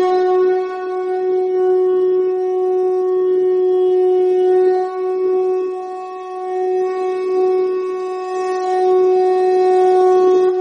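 Shankha (conch shell) blown in one long, unbroken note held at a single steady pitch, wavering a little in loudness.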